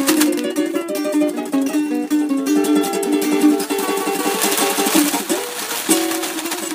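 Acoustic guitar and ukulele playing together, a quick run of plucked notes.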